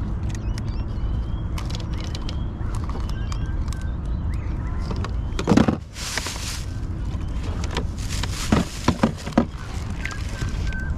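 Steady low wind rumble on the microphone with scattered clicks and knocks from pliers and tackle as a fish is unhooked in a kayak. There is a loud rustling burst about halfway through, and a quick run of four or five sharp clatters a little later.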